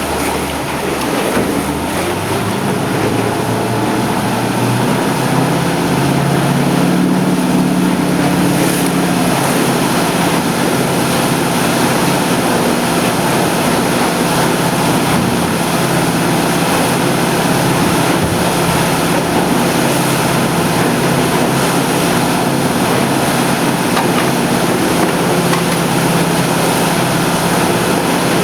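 Yamaha F350 5.3-litre V8 four-stroke outboard running under way. Its note climbs over the first few seconds, then holds steady. Wind and water rush past.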